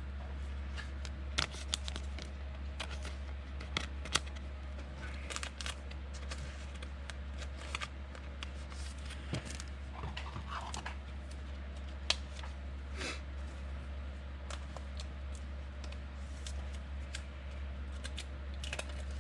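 Trading cards being handled by hand: scattered light clicks, taps and rustles as cards are slid and flicked through, over a steady low hum.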